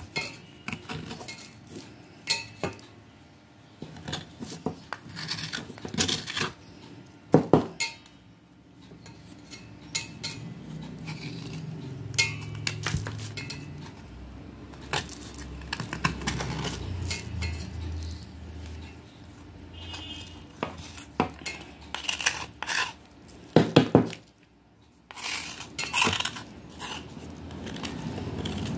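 A flat metal blade scraping the softened surface of a soaked slab of black edible clay, in irregular strokes with sharp scrapes and clicks, loudest twice: once around a quarter of the way in and again near the end.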